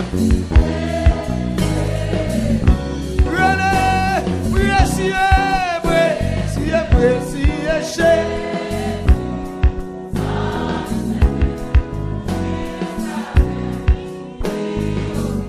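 Haitian gospel worship song: singing voices over a band, with a steady bass line and repeated drum hits.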